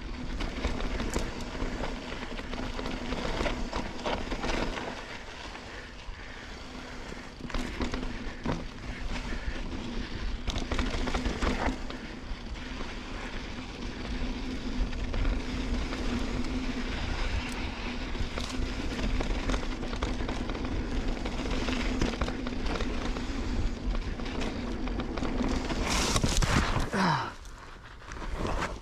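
Santa Cruz Bronson mountain bike riding a rough dirt trail: wind rumble on the camera microphone, tyre noise and frequent knocks and rattles from the bike over the ground, over a steady low hum. Near the end there is a louder burst of noise with a falling tone, then a brief drop in level.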